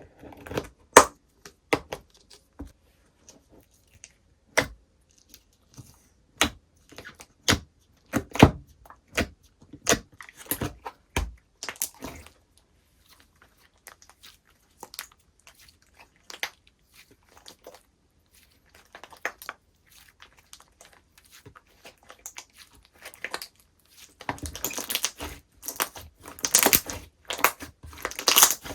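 Slime being handled, pressed and stretched, giving irregular sharp clicks and pops. The sound grows into a dense, rapid crackling near the end.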